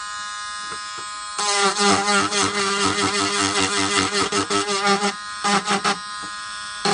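Small handheld rotary tool running with a steady buzz. About a second and a half in it grows louder and uneven, in repeated pulses, as the spinning bit is worked against a bamboo stalk.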